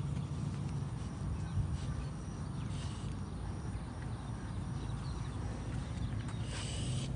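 A French bulldog walking on a concrete sidewalk, its nails making faint scattered clicks over a steady low rumble.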